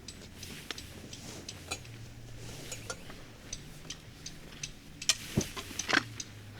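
Irregular sharp clicks and crackles, a few louder ones near the end, over a faint low hum.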